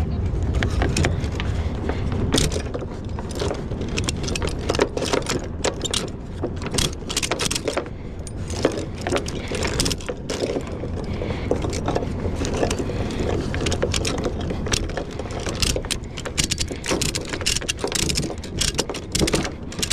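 Ratchet chain binder being cranked to tension a transport chain: irregular metallic ratchet clicks and clinking chain links, over a steady low rumble.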